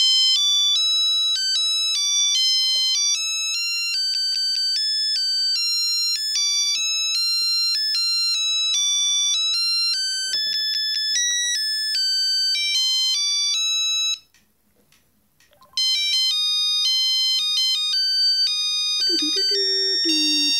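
Trium MT-140 Astral mobile phone playing a ringtone preview through its small speaker: a quick beeping melody, one note at a time. The melody stops after about fourteen seconds and a ringtone starts again after a short pause.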